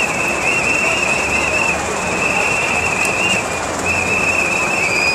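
A loud, high whistle-like tone held in long, slightly wavering notes with short breaks, over the steady noise of a crowd.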